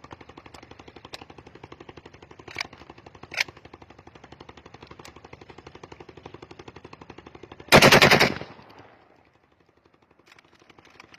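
A brushing machine working on the metal of a newly built 12-bore repeater shotgun, making a fast, even rattle. About eight seconds in it turns into a much louder, dense burst for under a second, then dies away to quiet.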